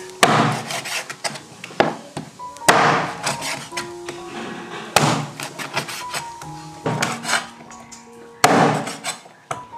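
Steel meat cleaver chopping raw chicken into pieces on a wooden chopping board: about five heavy chops, roughly one every two seconds, each a sharp thud of the blade through the chicken into the wood.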